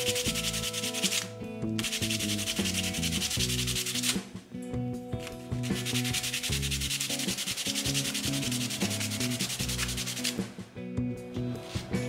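A small wooden part rubbed rapidly back and forth by hand on a sheet of sandpaper, in three spells of sanding with short pauses after about a second and around four seconds in, stopping about ten and a half seconds in.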